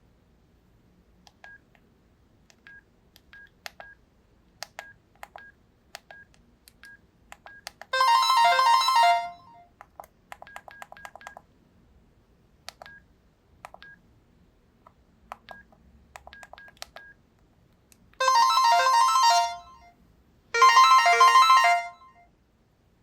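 NEC N341i mobile phone playing three short melodic ringtone previews, one about a third of the way in and two close together near the end, each breaking off after a second or so. Between them comes a run of short, faint keypad beeps as the phone's buttons are pressed.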